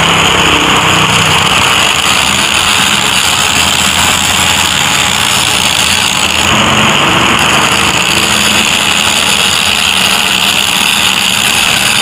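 Angle grinder running steadily, its disc cutting into the steel shell of a seized hermetic refrigerator compressor to open it up.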